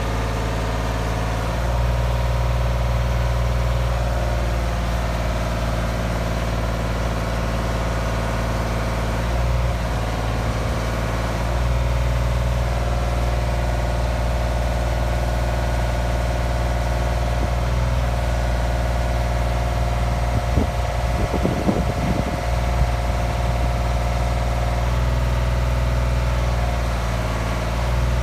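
Diesel engine of a 2005 Genie S60 telescopic boom lift running steadily, its note stepping up and down several times. There is a brief stretch of rougher noise about three quarters of the way through.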